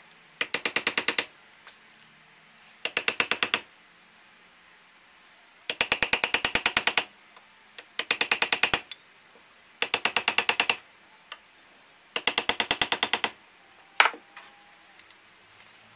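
A taped flat bar tapping rapidly against a new motorcycle fork oil seal, about ten taps a second, in six runs of about a second each, then one sharp knock near the end. The taps drive the seal evenly into the fork slider, worked around its rim, to seat it deep enough for the retaining clip.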